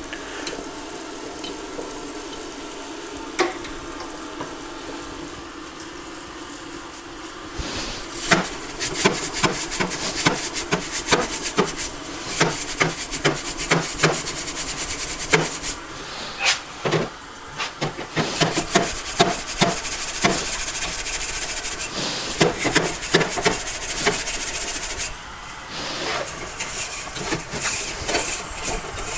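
Kitchen faucet running into a stainless steel sink, then, from about seven seconds in, stiff brushes scrubbing a freshly bored two-stroke cylinder under the water: a fast, dense clatter of scrapes and knocks over the running water.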